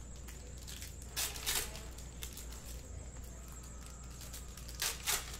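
Hands handling trading cards and a foil card-pack wrapper: short rustling swishes, a pair about a second in and another pair near the end, over a faint steady hum.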